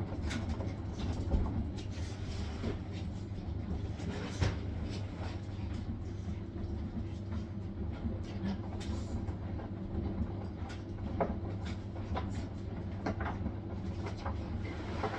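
Hisense washing machine on its spin cycle: a steady motor and drum hum running at constant speed, with scattered clicks and knocks over it.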